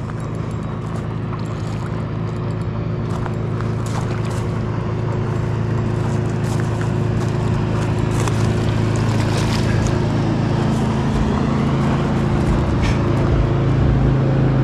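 A motorboat's engine running with a steady hum, growing steadily louder as it approaches.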